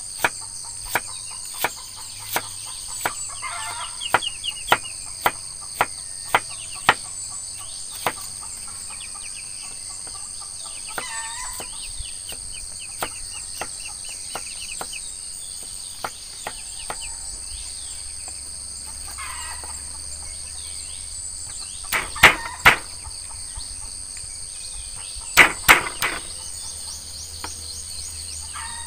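Knife chopping onion and ginger against a wooden stump chopping block: sharp knocks about one and a half a second at first, then sparser, with the loudest knocks in two quick clusters near the end. Insects chirr steadily in the high range, and chickens cluck now and then.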